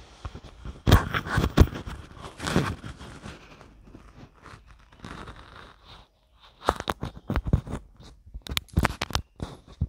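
Close handling noise at the microphone or recording device: sharp clicks and knocks mixed with scraping and rustling. It comes in two bursts, the loudest knocks about a second in, then another cluster from about six and a half seconds.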